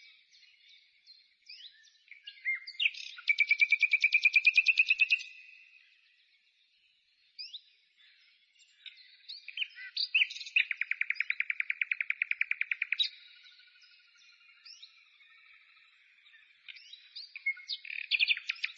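A songbird singing: scattered chirps and short whistles, with a long, fast trill about three seconds in, another from about ten to thirteen seconds, and a third starting near the end.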